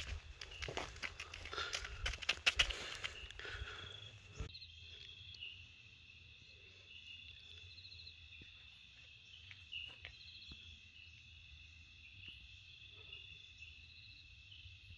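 Night insects trilling steadily, a high continuous buzz with a faster pulsing call above it. For the first four seconds or so, louder rustling and knocking noises lie over it, then stop abruptly.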